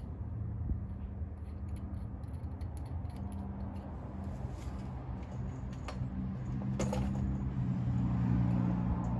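Light metallic clicks and clinks of locking-hub parts and screws being handled and fitted, over a steady low hum.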